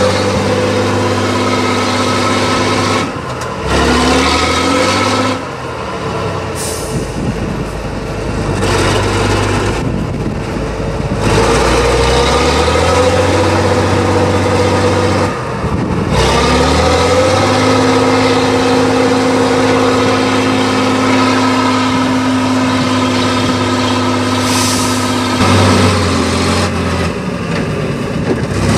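Tatra 813 8x8 trial truck's diesel engine working hard as the truck climbs a steep dirt slope, its note stepping up and down with the throttle and easing off briefly a few times. Two short hisses of air cut through, one early and one near the end.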